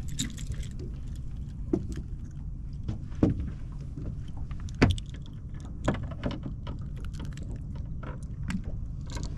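Scattered knocks and clicks of gear being handled on a small fishing boat, over a steady low rumble.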